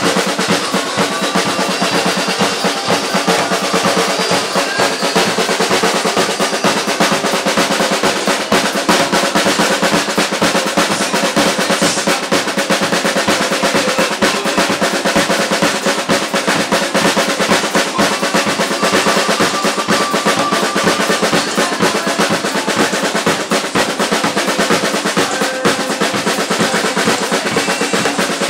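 Acoustic drum kit played at a fast, busy pace: rapid continuous snare strokes mixed with hi-hat and cymbal hits and bass drum.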